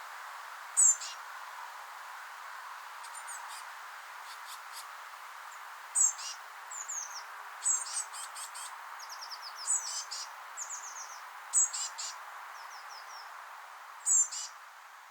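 Blue tit chicks chirping: short, high calls and quick runs of falling notes, with a loud burst every couple of seconds, over a steady background hiss.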